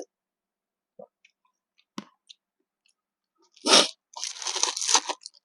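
Close-up eating sounds: a few faint mouth clicks, then a loud crunchy bite a little under four seconds in, followed by about a second of crunchy chewing.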